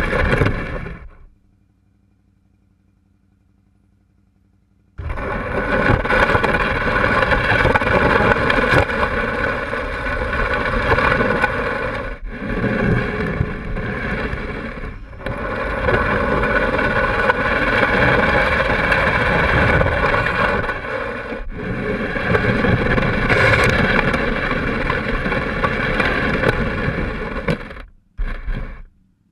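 Can-Am Spyder's V-twin engine running under way, with wind noise on the microphone. The sound fades out about a second in, is almost silent for a few seconds, returns suddenly about five seconds in, holds steady with a few brief dips, and cuts out twice near the end.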